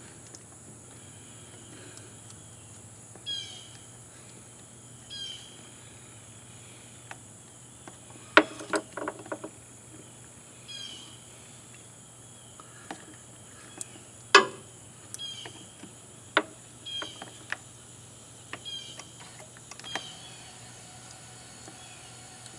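Outdoor insect drone with short chirps every couple of seconds, broken by a few sharp clicks and knocks, the loudest a cluster about eight seconds in and a single one about fourteen seconds in.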